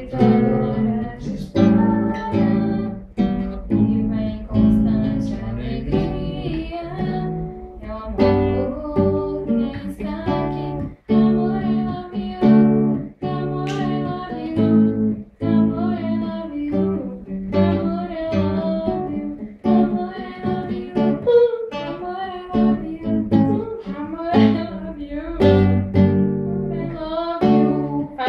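Acoustic guitar played in chords, with a voice singing along.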